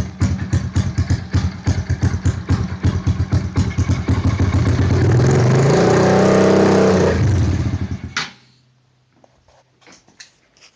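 Honda dirt bike engine through a straight-pipe exhaust, running on choke with a rough, pulsing idle, revved up for about two seconds, then falling back and cutting out abruptly about eight seconds in. It will run only with the choke on, which the owner takes for a carburettor fault he still has to find.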